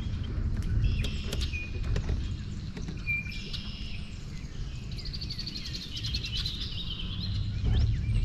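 Several wild songbirds singing and calling, with a fast trill of rapid repeated notes about five seconds in, over a steady low rumble.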